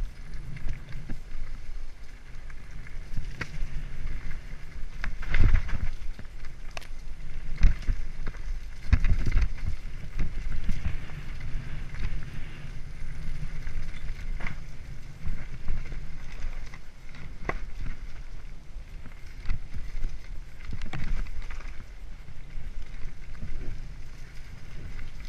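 Mountain bike descending a dirt singletrack at speed: tyres rumbling steadily over the ground, with frequent sharp knocks and rattles as the bike hits bumps, the hardest about five and nine seconds in.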